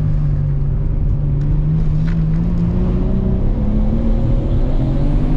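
Nissan Skyline R32 GTR's RB26 straight-six with a single HKS T04R turbo, heard from inside the cabin while driving at low, steady revs. The engine note rises slowly in pitch from about halfway through.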